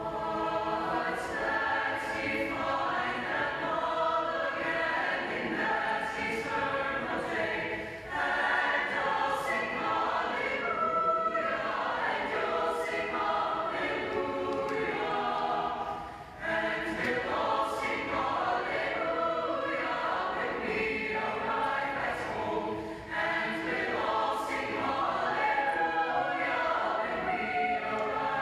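High school madrigal choir singing in harmony. The voices come in together right at the start, with brief breaks at about 8, 16 and 23 seconds in.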